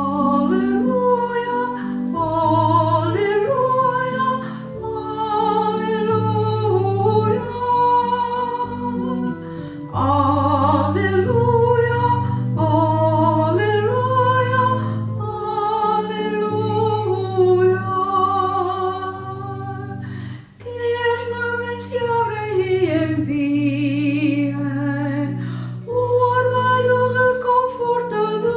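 A woman cantor singing the Gospel acclamation solo, a slow melody with vibrato over sustained instrumental chords, with a short break between phrases about two-thirds of the way through.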